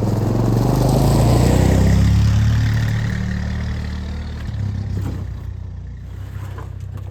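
A vehicle engine running close by. It grows louder for about the first two seconds and then fades steadily, with a couple of light knocks near the end.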